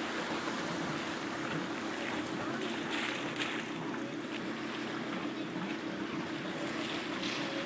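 A boat's engine runs steadily with a low hum, under the wash of water against the hull and wind on the microphone. A few brief splashes rise out of the wash, about three seconds in and again near the end.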